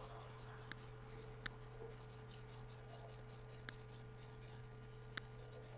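Four sharp computer mouse clicks, spaced unevenly, over a steady low electrical hum.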